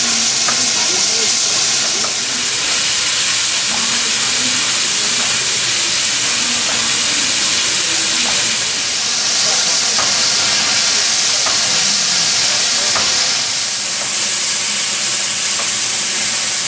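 Steam hissing loudly and steadily from the standing L-class steam locomotive L-3055, swelling and easing a little. Faint voices can be heard underneath.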